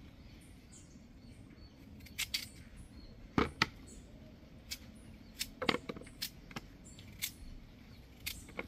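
Small kitchen knife cutting a peeled potato by hand over a plastic bowl: about a dozen irregular sharp clicks as the blade snaps through the flesh and pieces fall into the bowl.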